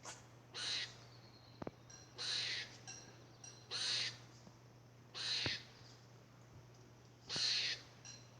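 Squirrel giving a series of short, raspy, breathy calls, five of them, roughly one every second and a half.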